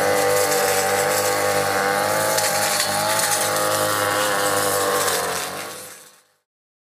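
Backpack brush cutter's small petrol engine running at high throttle, a steady engine note that wavers slightly in pitch, fading out near the end.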